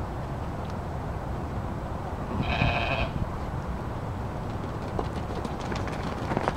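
A sheep bleats once, a short call about two and a half seconds in, over a steady low rumble; a few faint clicks follow near the end.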